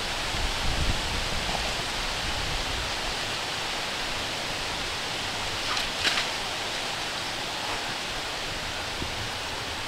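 Steady outdoor hiss of wind through trees and dry grass, with low wind buffeting on the microphone in the first second and one brief sharp rustle about six seconds in.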